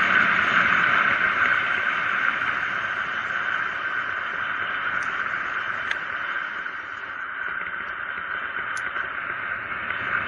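Steady rushing hiss of wind and tyre noise on a bike-mounted camera during a fast downhill run on asphalt, growing gradually quieter.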